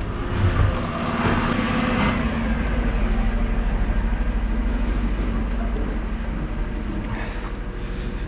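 Dennis Eagle Elite Plus refuse truck's diesel engine idling with a steady low hum, heard from beside the truck.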